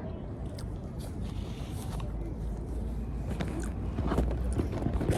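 Someone chewing and eating food, with scattered short crunches and clicks, most of them in the second half, over a steady low outdoor rumble.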